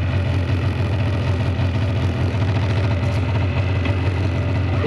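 Polaris snowmobile engine idling steadily while it warms up, running without the choke.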